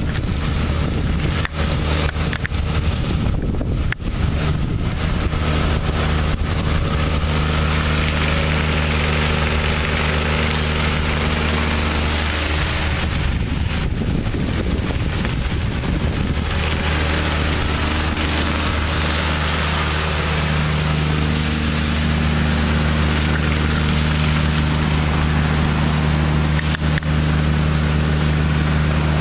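The Kubota diesel engine of a trailer-mounted Alkota hot-water pressure washer runs with a steady low hum, under the hiss of high-pressure water spraying onto paving. The hum briefly breaks up about halfway through.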